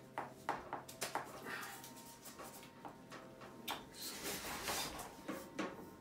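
Handling noise of PEX plastic water tubing with a brass push-fit fitting: scattered clicks, taps and rubbing as the tube is moved and fitted into place.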